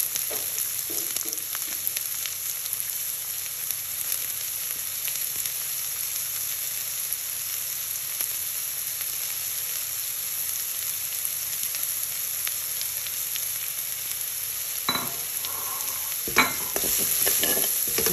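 Chopped red onion and garlic sizzling in hot oil in a steel pan, a steady hiss. Near the end a spatula knocks and scrapes against the pan as the onions are stirred.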